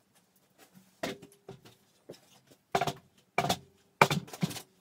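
Tools and pieces of wood being handled and set down while tidying up: a scatter of knocks and clunks, a couple of them leaving a brief ringing note, the loudest about four seconds in.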